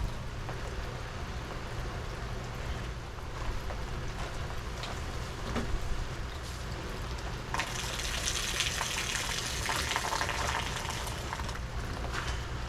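Steady heavy rain falling, with a louder rush of water for about three seconds starting around eight seconds in.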